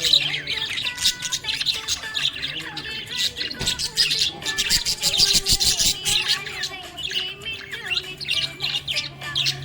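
Budgerigar chirping and warbling, a rapid, continuous run of short high chirps and twitters.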